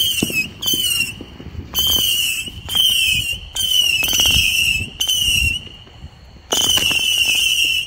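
A Black Cat Little Dynamite firework burning on the ground and spraying sparks, giving about seven shrill whistling bursts, each half a second to a second long, with short gaps between them.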